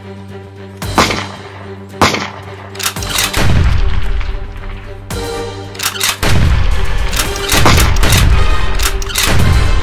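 Gunfire sound effects over dramatic soundtrack music: a few single shots about a second apart, then heavy rapid volleys with deep booms from about three seconds in.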